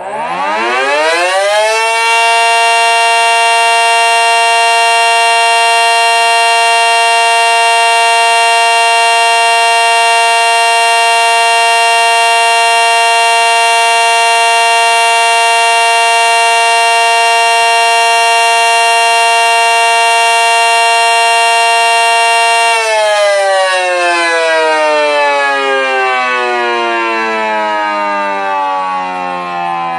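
Miniature ACA Cyclone 125 warning siren sounding an alert signal. It winds up to full pitch in about two seconds, holds one steady loud tone for about twenty seconds, then begins a slow wind-down about 23 seconds in, still falling at the end.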